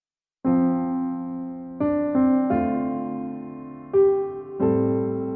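Background music: slow piano chords, starting about half a second in, each struck and left to ring and fade before the next.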